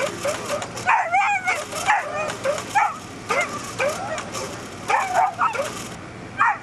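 Whippet yelping and whining in an irregular series of short, high calls that bend up and down in pitch, the excited vocalising of a sighthound eager to chase the lure.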